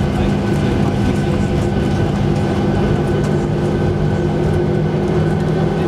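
Boeing 737-800 cabin noise while taxiing, heard from a window seat over the wing: its CFM56-7B turbofan engines running at taxi power, giving a steady drone with a few held tones over a low rumble.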